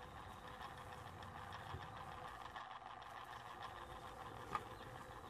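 Small wheeled robot's motor running faintly with a light rattle as it rolls, and one sharper click about four and a half seconds in.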